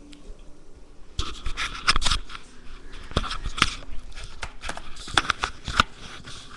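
Handling noise from a webcam being picked up and moved. Starting about a second in, a run of sharp knocks and clicks mixes with rustling and crackling, and it dies down near the end.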